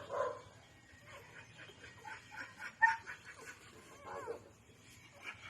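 Newborn pit bull puppies whimpering and squeaking in short, high cries, with one sharper yelp about three seconds in.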